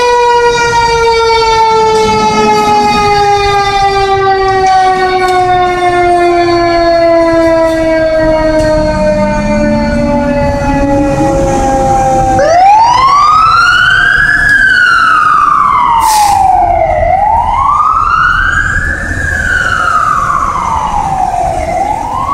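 Fire truck siren: one tone spins up, then winds down slowly, falling in pitch for about twelve seconds. Then a wail siren starts, rising and falling about every four to five seconds as the apparatus pulls out. A short burst of noise cuts in about sixteen seconds in.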